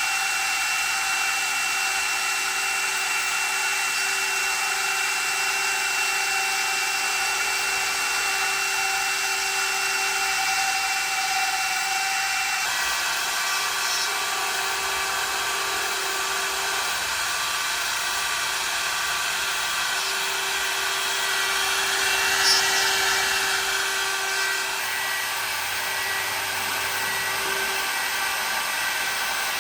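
CNC router spindle running with a steady high-pitched whine over a hiss. The whine's pitch pattern shifts about 13 seconds in and again near 25 seconds, with a brief louder burst around 22 seconds.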